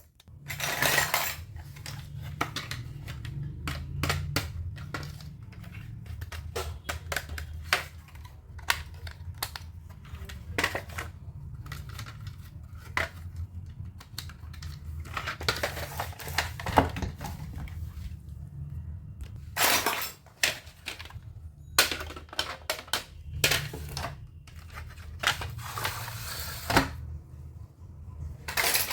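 Small toy kitchen pieces clicking and clinking as they are handled and set down, a run of sharp little knocks with a few longer rustling stretches.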